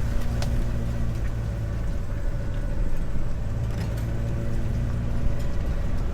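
A motor vehicle engine running steadily, with a few faint clicks, about half a second in and again about four seconds in.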